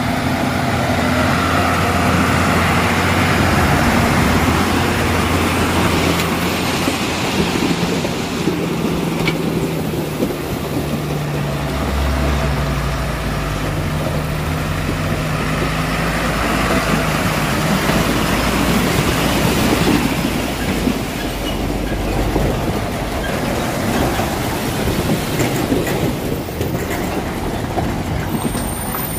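Heavy Tata diesel trucks driving slowly through deep mud, their engines running steadily under load. The engine note shifts up and down several times, loudest close by.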